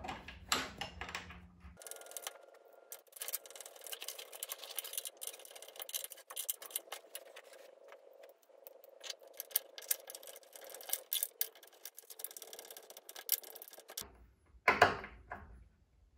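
Irregular small metallic clicks and taps of a hex key working the screws as treadmill deck brackets are refitted.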